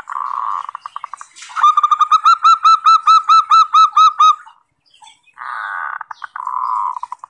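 Local zebra dove (perkutut) singing: a rolling, purring trill that breaks into quick stutters, then a run of about a dozen clear arched coo notes, some four or five a second, and a second rolling trill near the end.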